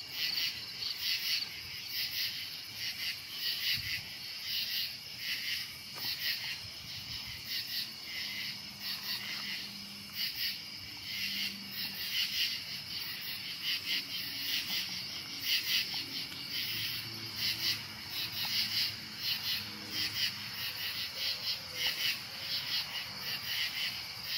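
Night-time chorus of crickets and other insects chirping in a steady, fast pulsing trill.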